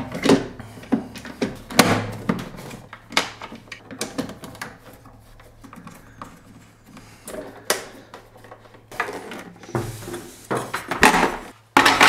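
Black plastic bottom cover of a De'Longhi ECP 35.31 espresso machine being fitted back on by hand: irregular light clicks and knocks of plastic against plastic, busier near the end.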